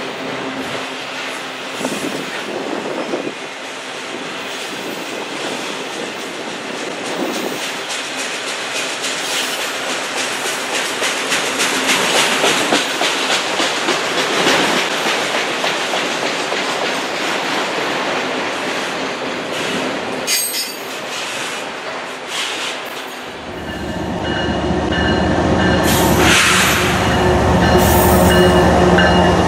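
Freight train cars rolling past on the rails, a steady clatter of wheels with some wheel squeal. About 23 seconds in, a deep engine rumble with a steady drone comes in abruptly and grows louder.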